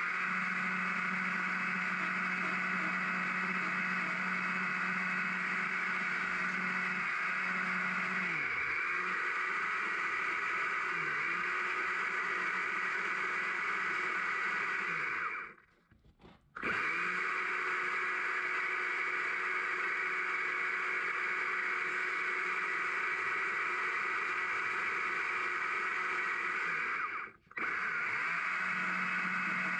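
Stihl MSA 200 C battery chainsaw running at full speed while carving a small log, a steady electric whine that dips in pitch briefly as the chain bites into the wood. It stops twice, for about a second just past the midpoint and for a moment near the end, starting up again each time.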